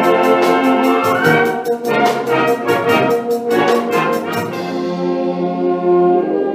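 Concert wind band playing loudly, brass prominent, over a quick regular beat of sharp hits. The beat stops about four and a half seconds in, leaving held brass and wind chords.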